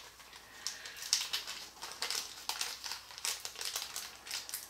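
Small clear plastic bag crinkling in short, irregular crackles as fingers work it open.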